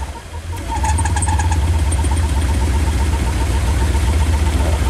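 A lifted square-body Chevy pickup's engine runs steadily at low revs while the truck sits stuck in deep snow. It is a low rumble with a light, fast, even ticking over it, and it settles in after a brief quieter moment at the start.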